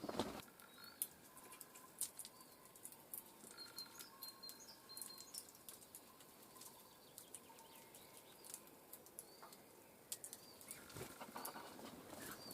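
Small birds at a feeder: scattered sharp clicks and taps, with short high chirps and calls in between.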